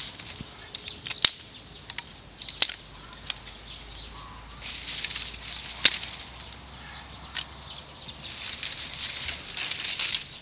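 Dry twigs snapping and dry leaf litter rustling as sticks are broken and swept together into a pile of kindling. A few sharp snaps stand out, the loudest about six seconds in, between stretches of scratchy rustling.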